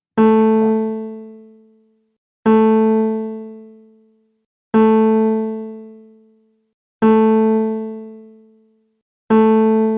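Background music: the same single keyboard note is struck five times, about every two and a quarter seconds. Each strike rings out and fades away over roughly two seconds.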